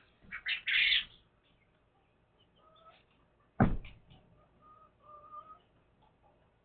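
Pet hens calling: a harsh squawk in the first second, then soft, held calls through the middle. A single sharp knock comes about three and a half seconds in.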